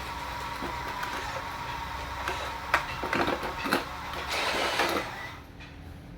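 Small electric motors and plastic gearboxes of an RC construction model whirring, with a few sharp clicks about three seconds in; the whir drops away near the end.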